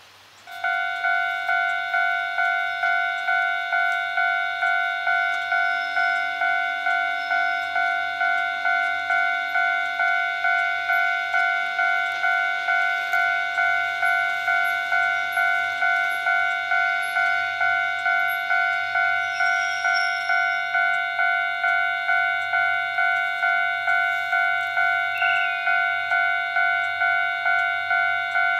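Railway level-crossing warning bell starting up about half a second in and ringing steadily, an electronic ding repeating about twice a second, the signal that a train is approaching.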